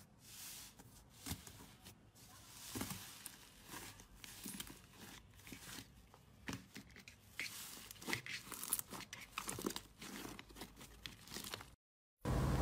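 Slime being squished and pulled by hand, giving irregular small crackles and pops. Near the end, after a brief silent cut, a loud steady hiss begins.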